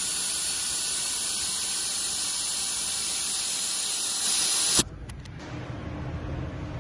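A loud, steady hiss that cuts off abruptly about five seconds in, followed by a few light clicks and a low background hum.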